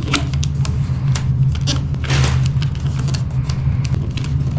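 Wrapping paper rustling and crinkling as it is folded down around the corners of a box, in many short sharp crackles with a couple of longer rustles. A steady low hum runs underneath.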